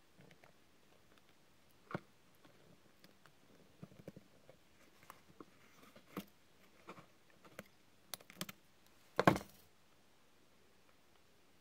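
Scattered light clicks and taps of handling small parts: LED string lights and thin steel wire being fastened to a miniature dollhouse's lattice roof. The loudest is a short cluster of clicks about nine seconds in.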